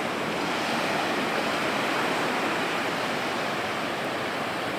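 Ocean surf breaking and washing up a beach, a steady rush of water that swells slightly between about one and two and a half seconds in.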